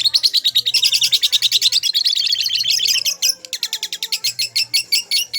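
Lovebird singing its long chattering song ("ngekek"): a fast, unbroken run of sharp, high chirps, about a dozen a second. There is a brief break a little past halfway, then it carries on a little slower.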